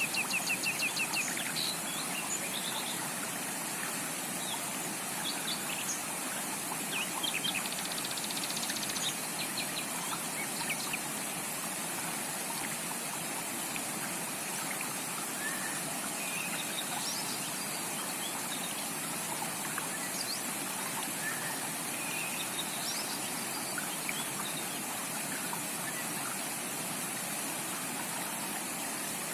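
Steady rush of a flowing forest creek, with birds calling over it: a fast run of repeated chirps at the start, then scattered chirps and whistles that thin out after about ten seconds.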